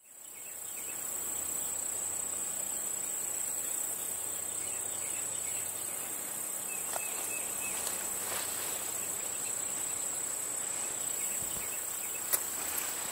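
Insects singing in an unbroken, high-pitched trill that fades in over the first second, with a few faint clicks near the end.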